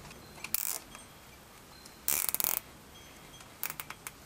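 Plastic zip tie being pulled tight around bundled wires: a short zip about half a second in, then a longer run of fast ratcheting clicks about two seconds in as the strap is drawn through its head.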